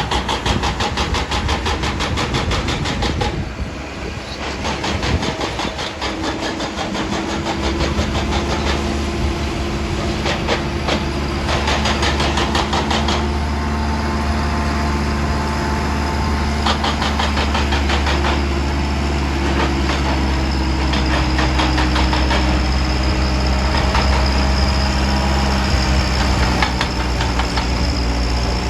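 Heavy diesel machinery engine running steadily, its low rumble growing heavier about a quarter of the way in. Several stretches of rapid metallic clatter come and go.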